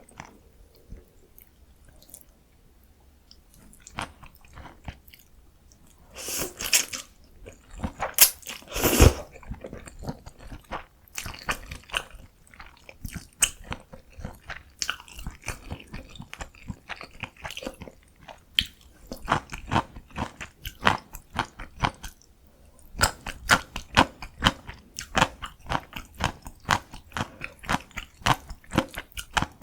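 Close-miked chewing of bibim noodles (bibimmyeon): quick, wet mouth clicks in dense runs. A couple of louder, longer sounds come about a quarter of the way in, and the chewing picks up again after a short pause near the end.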